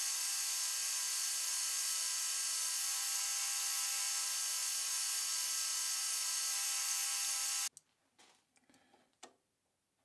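Metal lathe turning a D2 tool steel bar with a carbide insert: a steady high whine made of many even tones. It stops suddenly about eight seconds in, followed by a few light clicks.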